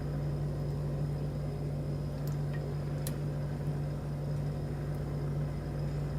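Steady low background hum, with two faint metallic clicks about two and three seconds in from a lock pick working the pin stack of a pin-tumbler challenge lock.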